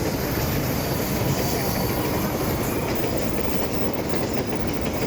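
A train running past with a steady rumble of wheels on rails.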